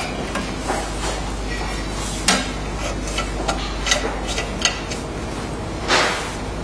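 Metal clanks and clicks as the round steel door of an OCA laminator's built-in bubble-remover pressure chamber is swung shut and its clamp latched. The clicks come in a quick run from a little past two seconds in, and a louder short burst of noise follows near the end, over a low steady hum.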